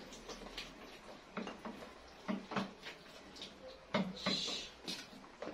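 Spatula stirring and scraping a wet flour dough in a plastic mixing bowl, with irregular soft knocks and clicks against the bowl's side as flour is added.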